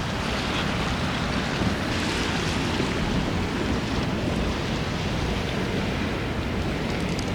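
Strong wind buffeting the microphone, a steady low rumbling rush with no letup.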